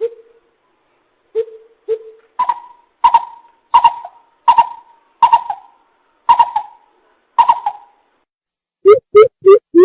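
Coucal lure call: a few low hoots, then a series of about seven higher, evenly spaced hoops, then a quick run of low hoots near the end.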